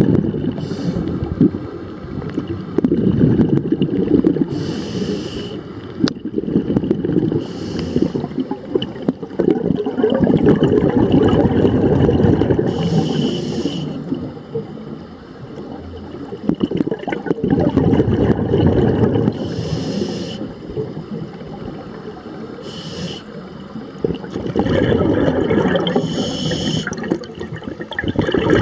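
Scuba diver breathing through a regulator underwater, heard through the camera housing: short hissing inhalations alternate with longer low bubbling exhalations, several breaths in all.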